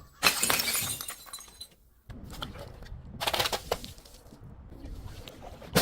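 Glass bottle being broken, shattering and crunching with many small clinks, in two bursts: one right at the start, the louder, and another about three seconds in.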